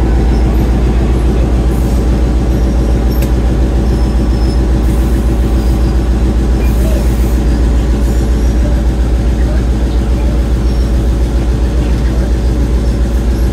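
EMD GP7 diesel-electric locomotive's 16-cylinder two-stroke engine running steadily, a loud low drone with a fast, even pulse.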